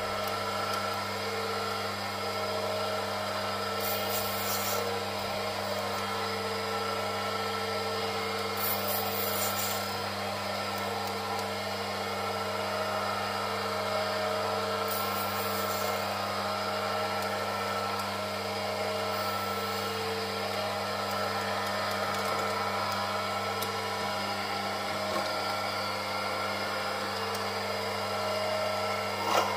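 Small benchtop metal lathe running steadily, its motor humming, while the tool cuts the workpiece with a scraping, rasping sound, broken by several short bursts of higher hiss.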